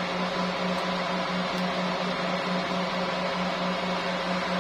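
Steady machine hum: a low tone that pulses several times a second over an even hiss.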